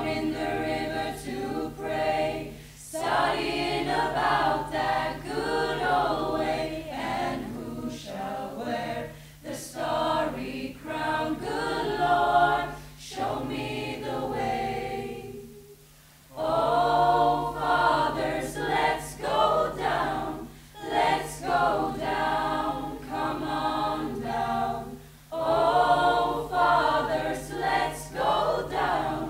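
Student choir singing, with a short pause about halfway through before the singing resumes.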